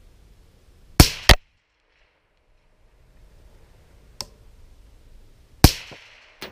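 Suppressed AR-15 rifle with a SilencerCo Omega can, fired twice about four and a half seconds apart. The first shot is followed at once by a second sharp crack. A faint tick comes about four seconds in.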